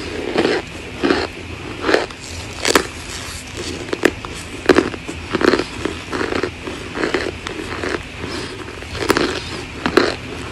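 Compacted cornstarch chunks crunching and squeaking: a steady run of short crisp crunches, about one every 0.7 seconds.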